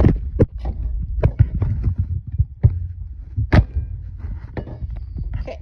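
Handling noise of a CO2 canister being opened by hand: a string of sharp plastic clicks and knocks as its tamper seal and plastic cap are worked off, the loudest knock about three and a half seconds in, over a low rumble of hands rubbing near the phone's microphone.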